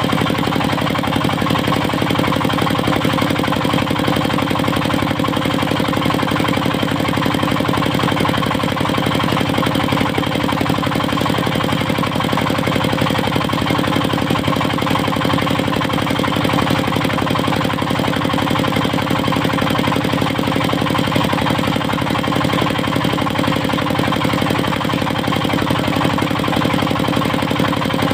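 Diesel engine of a portable circular sawmill running steadily at an even speed.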